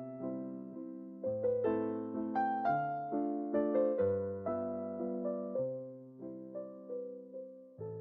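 Background music: a gentle solo piano melody over held bass notes.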